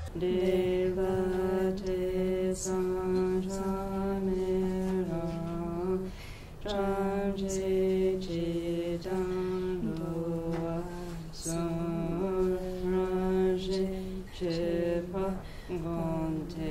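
Tibetan Buddhist liturgical chanting: voices singing a slow, melodic chant in long held notes that step between a few pitches, with brief pauses for breath.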